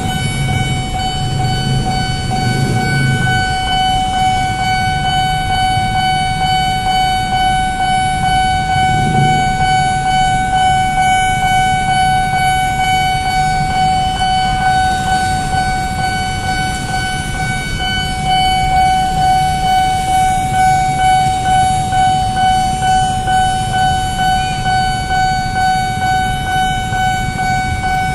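Railway level-crossing warning alarm sounding without a break: a steady high electronic tone, pulsing gently in the second half. A low engine rumble from traffic waiting at the crossing lies underneath.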